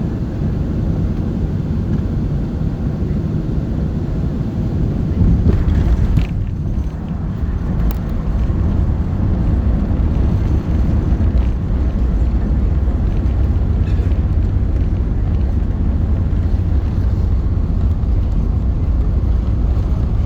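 Airbus A380 jet engines giving a steady low rumble during the landing, with wind noise on the microphone. The sound swells briefly about six seconds in and dips for a moment just after.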